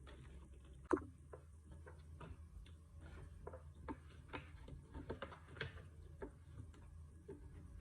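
Seafood boil mukbang eating sounds: faint, irregular small clicks and taps of eating and handling the food. There is one sharper click about a second in and a busier run of clicks a little past the middle.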